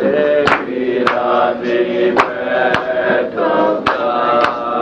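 Chanting voices holding long, slightly sliding notes over a steady beat. A sharp percussion strike lands about twice a second.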